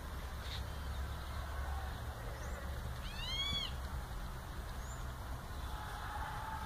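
Black swan giving a single short high call, rising then falling in pitch, about halfway through, with a steady low rumble underneath.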